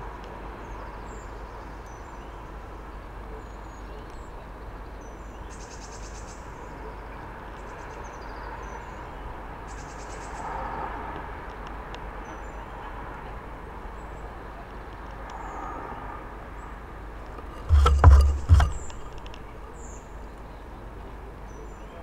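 Steady rumble of distant road traffic with faint, scattered high bird chirps. Late on comes one loud low thump with a few sharp clicks.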